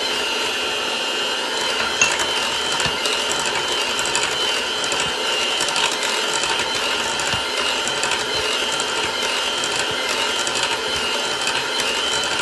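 Electric mixer running steadily at low speed, beating eggs and sugar into cake batter as the oil is added, with a constant high whine over its motor hum.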